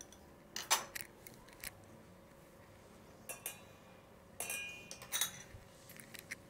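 Small glass bowls clinking and tapping on a glass tabletop as ingredients are handled. There are a handful of separate clinks, and one about three seconds in rings briefly.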